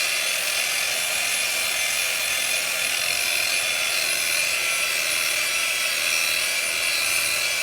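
Power sander running steadily against concrete: a continuous, even grinding noise with no breaks.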